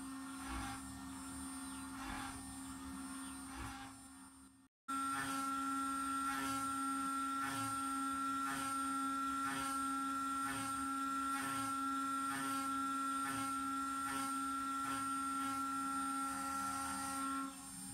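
A 2.2 kW ER20 router spindle running steadily with a high whine while a small end mill cuts aluminium plate, with a regular pulsing about twice a second as the cutter works. It gets louder about five seconds in and fades away near the end.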